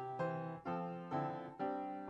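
Piano playing a hymn accompaniment, chords struck about twice a second.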